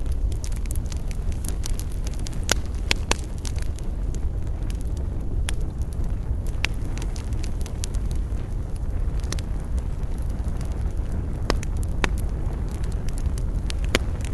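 Wood campfire crackling: irregular sharp pops and snaps from the burning wood over a steady low rumble.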